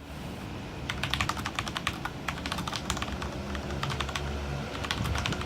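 Typing on a Corsair Strafe mechanical keyboard with Cherry MX Red linear switches: quick, irregular key strokes that start about a second in. A steady low hum sits underneath.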